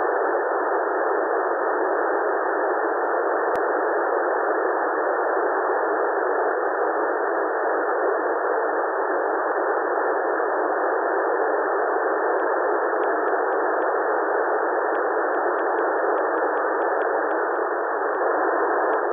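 Steady radio static from an SDR receiver on FM, tuned to the 145.800 MHz ISS downlink with no transmission on the channel yet. It is a flat, even hiss, thin and telephone-like.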